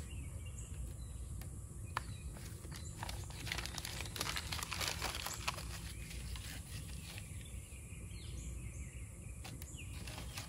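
Dry corn husks and kindling rustling and crinkling as they are stuffed by hand into the firebox of a homemade propane-bottle wood stove, with light clicks and knocks, busiest a few seconds in.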